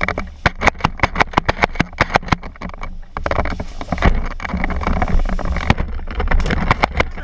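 Airsoft guns firing during a game: a fast run of sharp cracks, about six or seven a second at first, turning into a denser rattle of shots about three seconds in.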